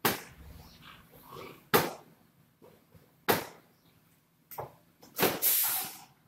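Aerosol pallet adhesive spraying onto a screen printing platen in a short hissing burst near the end, after four sharp knocks about a second and a half apart.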